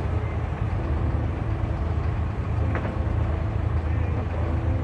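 Diesel engine of a wooden abra water taxi running with a steady low drone as the boat moves alongside the dock. A short knock sounds a little under three seconds in.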